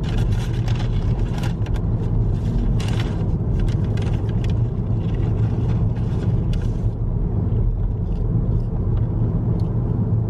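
Steady low rumble of a car driving along a road, with road and engine noise heard from inside the cabin and some crackling hiss during the first several seconds.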